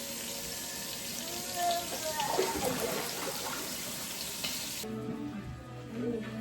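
Kitchen tap running into a sink during dish-washing, a steady hiss that cuts off abruptly about five seconds in. Guitar music follows.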